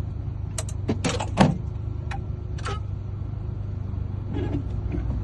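Keys and key blanks clicking as they are handled, several short sharp clicks with the loudest about a second and a half in, over a steady low hum.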